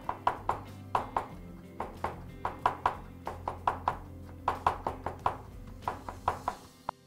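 Masflex KitchenPro Chinese vegetable cleaver chopping carrot into fine julienne on a wooden cutting board: quick, even knocks of the blade on the board, about four a second, stopping near the end. Background music plays underneath.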